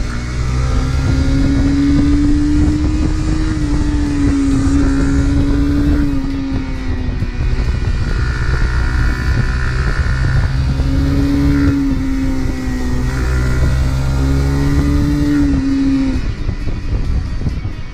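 Honda CRF250 Rally's single-cylinder engine running under way through curves, its note falling and rising with the throttle: it eases off about six seconds in, picks up again near eleven seconds, and eases off once more near the end. A steady rush of wind runs underneath.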